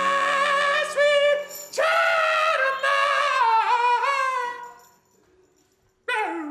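A man singing very high falsetto notes, held with a wavering vibrato in several phrases, the last one sliding down in pitch. After a short silence, a sudden loud sound slides sharply down in pitch near the end.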